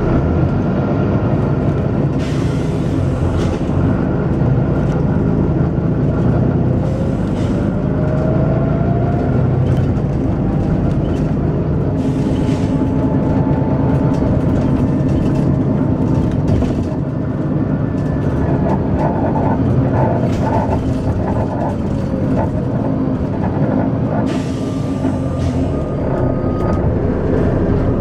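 Volvo B9TL double-decker bus's six-cylinder diesel engine working hard, with a rising whine about seven seconds in. Short bursts of air hiss from the bus's air system come several times, near the start, in the middle and near the end.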